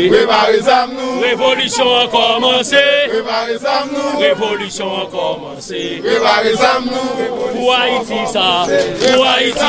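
A group of men chanting together in unison.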